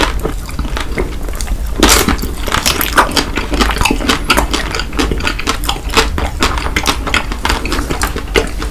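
Close-miked biting and chewing of chocolate-coated Snickers ice cream bars: dense, irregular crackles from the mouth, with a loud crunch about two seconds in.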